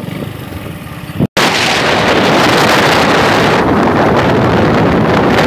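Wind buffeting a phone microphone: a loud, even rush that starts abruptly about a second in, just after a brief dropout. Before it, quieter wind and road noise from riding on a motorbike.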